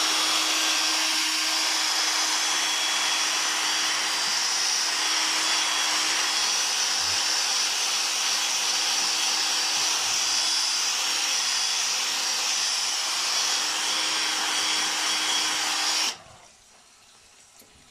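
Battery-powered drill spinning a household washing brush against a wall, scrubbing off grease with bleach and hot water: a steady motor whine under a rushing scrub noise, which stops abruptly near the end.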